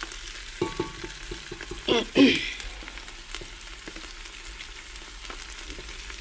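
Chopped Swiss chard and softened onion sizzling in hot oil in a pot, stirred with a wooden spoon as the chard goes in. A brief louder sound comes about two seconds in.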